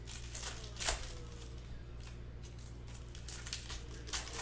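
Shiny foil wrapper of a Topps Chrome baseball card pack crinkling and tearing as it is ripped open by hand, with the loudest rip about a second in and another near the end. A steady low hum runs underneath.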